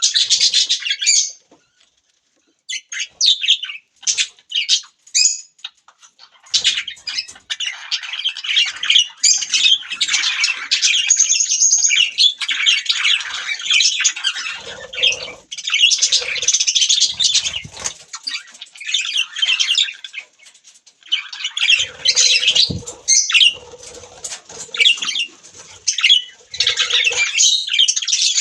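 Budgerigars chattering and chirping, a dense run of quick, warbling high calls and squawks, broken by a short pause near the start.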